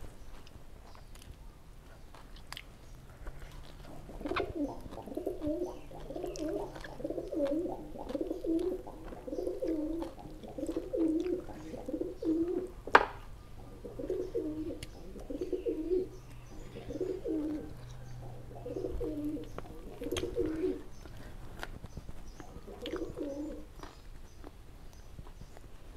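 A dove cooing in a long series of short, low, repeated notes, with scattered eating clicks and a sharp click about halfway through.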